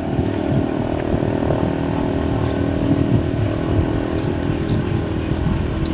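A steady low drone, like a small engine running, with a few faint clicks.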